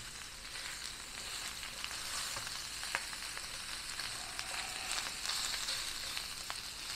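Ground pork sausage sizzling steadily as it browns over high heat, with a few faint clicks.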